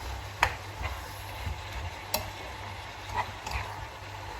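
Chicken and mushrooms frying in a pan with a faint steady sizzle, stirred with a utensil that knocks sharply against the pan a few times, loudest about half a second in and again about two seconds in.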